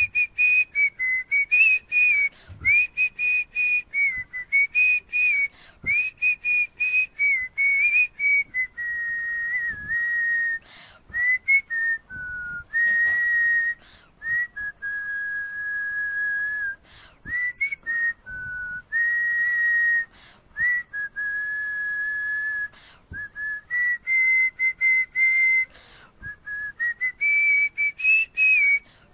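A person whistling a tune with the lips, close into a wired earphone microphone: clear single notes that step up and down, some short and quick, a few held for a second or two, with brief breaths between phrases.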